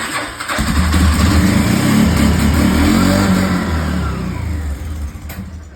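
A motor vehicle's engine starts and runs at raised revs, then eases off near the end.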